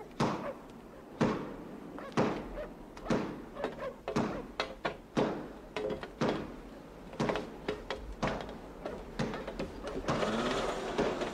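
Footsteps on an iron footbridge: sharp, ringing knocks about once a second, with lighter steps between. A steady hiss comes in near the end.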